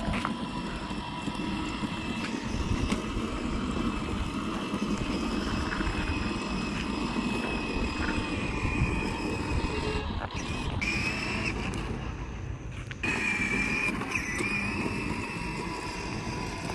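Steady rumble of riding along a paved road, with tyre and wind noise on the microphone and a thin steady electric whine over it.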